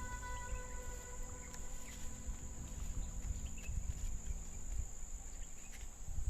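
Steady high-pitched insect chorus, with a sustained musical chord fading out in the first couple of seconds and a low uneven rumble underneath.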